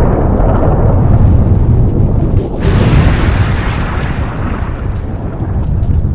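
Loud, continuous rumbling explosion sound effects, with a sudden brighter blast about two and a half seconds in that dies away into the rumble.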